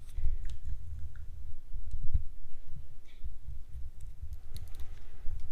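Scattered light clicks and low knocks of hands working parts of a bicycle's rear brake, with soft handling bumps throughout.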